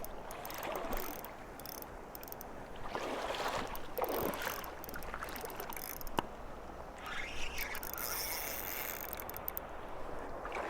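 Shallow river water running, with swells of splashing water noise and a single sharp click about six seconds in.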